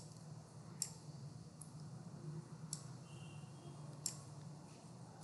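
Computer mouse buttons clicking faintly several times, roughly a second apart, over a low steady hum, as pivot-table fields are picked up and dropped.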